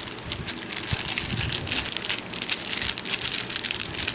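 Plastic snack packets crinkling and rustling as they are handled, a dense irregular crackle.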